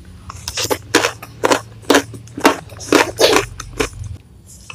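Close-miked chewing of a mouthful of crunchy food: a run of crisp crunches about two a second that stops near the end.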